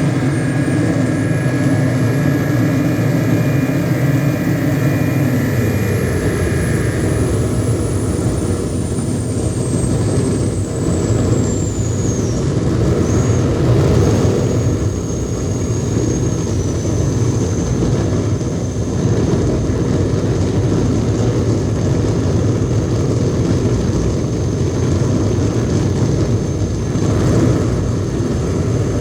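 Thick electronic noise drone from DIY square-wave oscillators and circuit-bent electronics: a dense low rumble that runs steadily throughout. Over it, a thin high whistle rises, then glides slowly down over several seconds and settles into a steady tone. A cluster of held mid-range tones drops out about seven seconds in.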